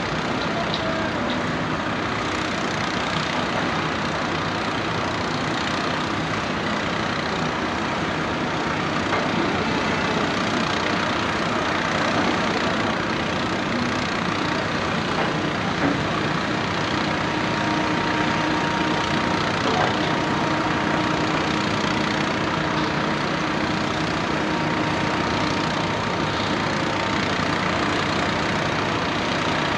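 Diesel engines of heavy excavators running steadily as they drill holes in street pavement, a continuous mechanical din. A faint steady whine joins in about halfway through.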